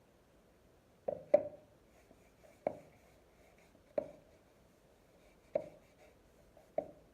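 About six light, sharp knocks or taps on a hard surface at uneven intervals, a pair close together about a second in and then single taps every second or so, each with a short ring.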